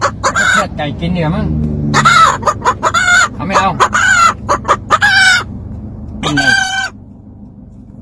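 Amazon parrot calling loudly in a rapid string of short, sharp cackling calls, with one longer call a little after six seconds in, then quiet.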